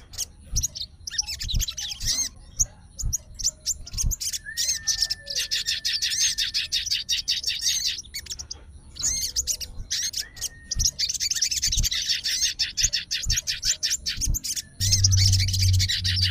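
A sogon songbird singing in long runs of rapid, fast-repeated chirps with short pauses between them, the vigorous 'gacor' song of a fighter-type bird. A low hum comes in near the end.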